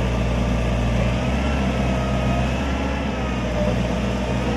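Propane-fuelled GC30S forklift engine running steadily as the truck handles a pallet, with a thin whine above the engine note that drifts slightly in pitch.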